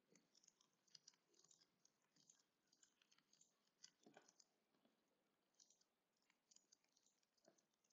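Near silence with faint, irregular computer mouse clicks, several a second at times, as objects are selected in a 3D modelling program.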